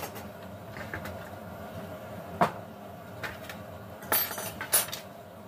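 A few sharp clinks and knocks of dishes and utensils being handled in a kitchen: one single knock about halfway through, then a quick cluster of clatter about four seconds in.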